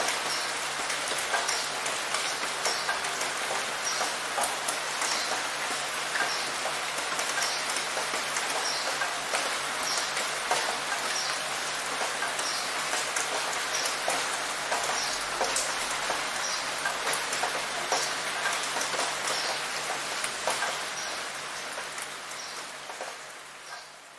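Steady rain falling, a dense even hiss with many individual drop hits heard through it. It fades out over the last few seconds.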